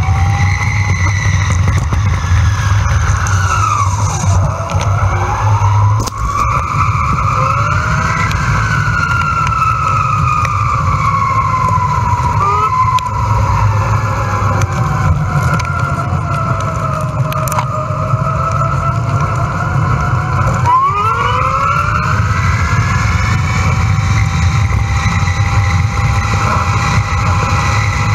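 Electric bike ride played back fast: steady wind rumble on the camera microphone, over which a whine from the bike's electric hub motor glides up and down in pitch with speed, sweeping sharply upward about twenty seconds in.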